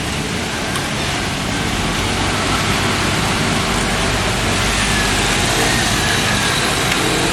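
Steady hiss of rain and wet street noise, with a motor vehicle's engine idling as a low steady hum underneath.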